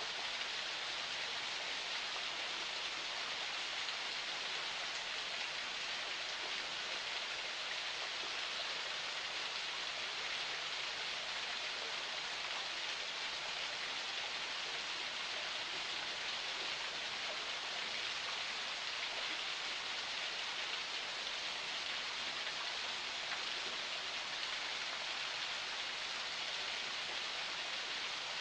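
Water of a forest spring flowing and splashing, a steady even hiss that does not change.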